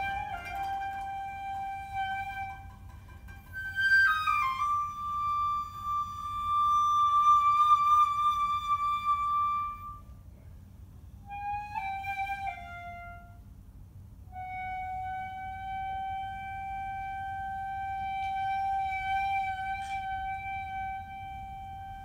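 Shinobue (Japanese bamboo transverse flute) playing slowly, solo: long held notes joined by slides in pitch, a short pause about ten seconds in, then a brief falling phrase and one long sustained lower note.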